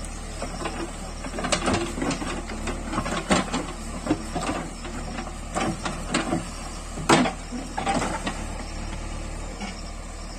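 JCB backhoe loader's diesel engine running steadily, with an irregular run of sharp clanks and knocks over it, the loudest about three seconds in and again about seven seconds in.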